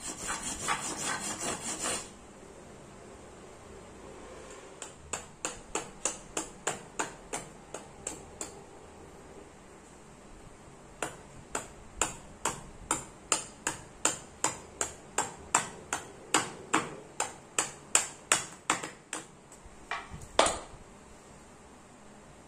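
A knife scraping sengon wood for about two seconds. Then two runs of sharp, evenly spaced knocks, two to three a second, as a knife chops into the wood to rough out a slingshot fork, with one louder knock near the end.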